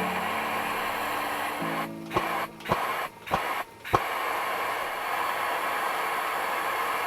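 Background music with a steady hissing texture, broken by four short stops about two to four seconds in, each ending on a sharp hit.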